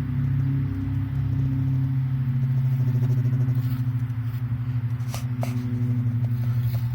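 A low, steady droning hum with a fast flutter, coming from the sky from an unidentified source.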